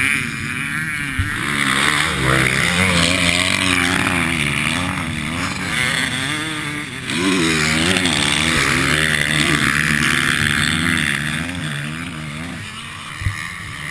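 Suzuki RM-Z450 four-stroke single-cylinder motocross engine running, its pitch rising and falling as the throttle is worked, with two short knocks: one about a second in and one near the end.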